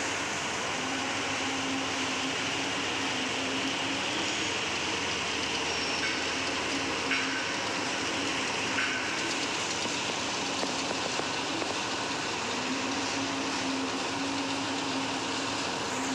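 Concrete mixer truck running close by: a steady mechanical noise with a low hum that fades in and out.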